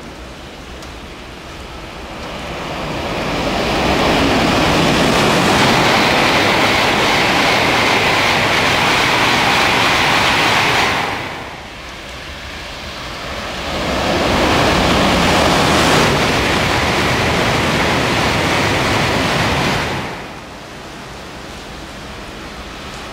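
Shinkansen bullet trains passing through a station at speed on wet track: a loud rushing noise that builds over a couple of seconds and holds steady. This happens twice, each pass cutting off abruptly, and a third pass begins to build near the end.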